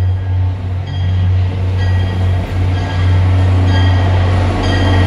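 MBTA commuter rail diesel locomotive approaching, its engine running with a loud, steady low drone. The locomotive bell rings over it about once a second.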